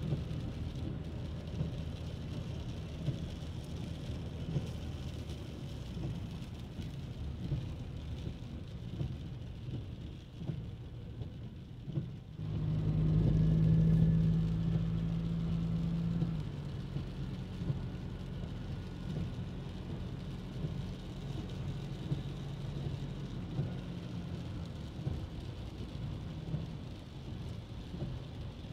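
Rain and street traffic with a steady low rumble; about halfway through, a vehicle's engine hum swells close and holds for about four seconds before dropping back.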